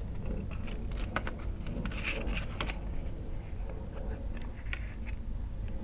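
A Blu-ray bonus disc and its plastic packaging being handled by hand: scattered light clicks and taps, clustered in the first half and again near the end, over a low steady rumble.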